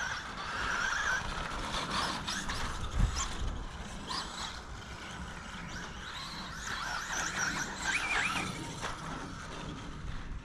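Traxxas Bandito RC buggy's brushless motor and drivetrain whining, rising and falling in pitch as it is driven over rough ground, with scattered clicks and rattles. One loud thump comes about three seconds in.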